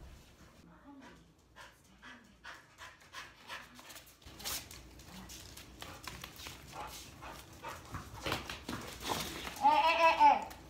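Dogs panting and sniffing in quick, breathy bursts at close range. Near the end comes a short, louder, high-pitched voiced sound.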